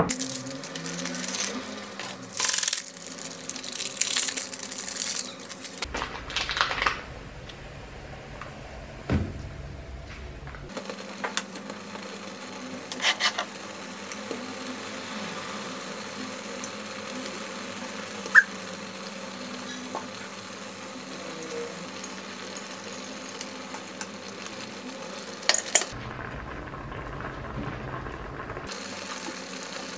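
Ramen and seafood simmering in a saucepan on an electric hob, with scattered clinks and knocks of ingredients and utensils against the pot. The knocks are densest in the first few seconds and come singly a few times later.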